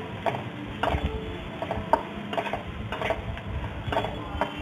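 A spatula scraping and knocking against an aluminium kadai at about two strokes a second, stirring crushed garlic and fennel seeds frying in oil.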